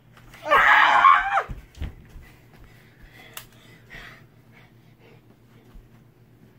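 A child's loud wordless yell lasting about a second, starting about half a second in, followed by a few faint clicks and rustles.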